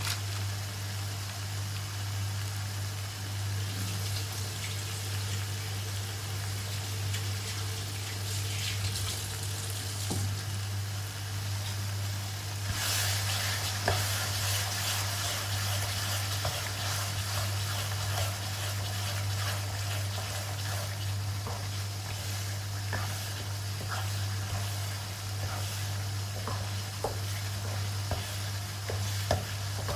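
Chili paste sizzling as it fries in a non-stick wok, getting louder about halfway through. In the second half a wooden spatula stirs it, with small knocks against the pan. A steady low hum runs underneath.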